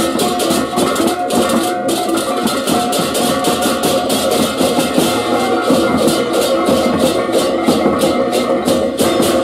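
Balinese baleganjur gamelan playing: hand cymbals (cengceng) clash in a fast, even rhythm over ringing gong tones and drums.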